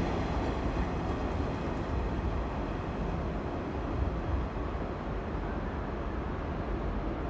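JR East 185-series electric train pulling out: the last car rolls past and the rumble of its wheels on the rails slowly fades as it moves away, under a steady station background rumble.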